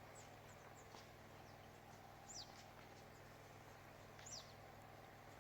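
Two short, high, falling bird chirps about two seconds apart, over a faint steady hum.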